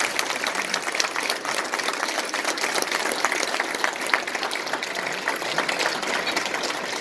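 Audience applauding, a steady clatter of many hands clapping.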